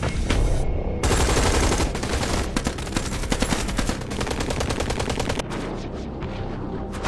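Automatic rifle fire: a few single shots, then from about a second in a long run of rapid continuous fire that thins into scattered shots near the end.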